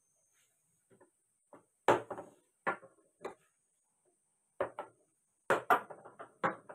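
Chess pieces knocking and clacking on a wooden chessboard as they are moved and taken: a series of short sharp knocks, the loudest about two seconds in, and a quick cluster of them near the end.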